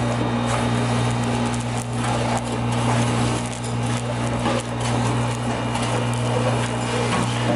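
Industrial vacuum running steadily with a low hum and a rush of air through its 2-1/2 inch hose as it sucks up the last Portland cement from the bottom of a steel drum. Scattered short ticks sound as grit and the nozzle strike the drum.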